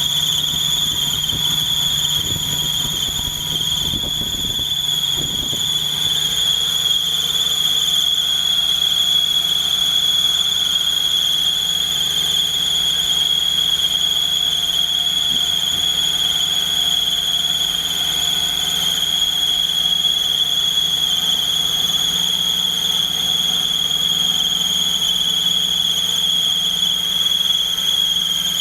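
Engine running with a steady high-pitched squeal from its remanufactured Rochester Quadrajet four-barrel carburetor. The owner calls the noise very irritating; it comes on whenever the engine is started, and its cause is unknown.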